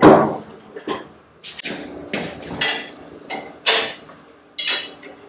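Heavy steel pieces of a BHJ engine-block decking fixture clanking and knocking as they are handled and set on the machine's bed: about eight metal knocks, some with a short ringing tone, the loudest about two thirds of the way in, over a faint steady hum.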